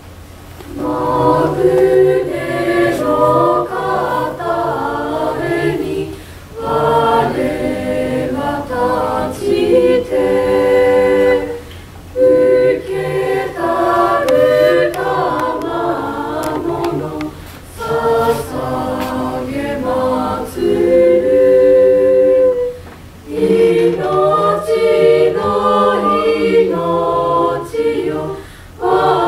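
Mixed choir of girls and boys singing a cappella in parts under a conductor, the singing starting about a second in and moving in phrases separated by short pauses.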